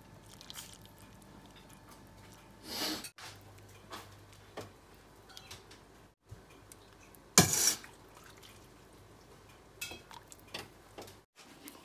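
A metal ladle scooping broth and meatballs from a soup pot and pouring into a ceramic bowl: scattered clinks and knocks of metal on pot and bowl, the loudest about seven and a half seconds in, with a run of small ticks near the end.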